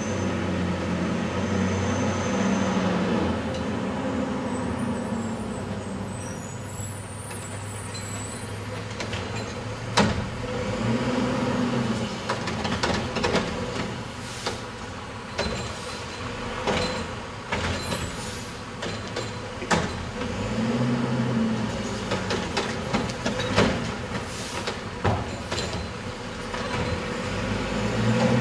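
Wittke front-loader garbage truck with a Curotto-Can automated cart arm collecting curbside carts. The engine revs up and settles again several times as the hydraulics work the arm, with a run of sharp bangs and clanks from about a third of the way in as carts are lifted, shaken out into the can and set back down.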